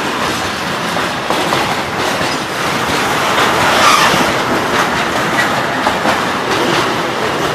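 Intermodal freight train's flat wagons, loaded with tank containers and swap bodies, rolling past close by, wheels clattering steadily over the rail joints, a little louder and hissier for a moment about four seconds in.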